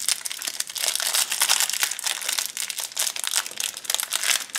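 Small clear plastic bag holding a Kinder Surprise toy crinkling as it is handled in the fingers, a dense, continuous run of small crackles with a brief let-up near the end.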